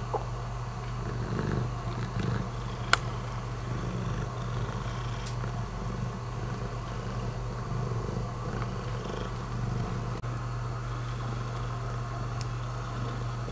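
A long-haired cat purring close up, a steady low rumble, with one sharp click about three seconds in.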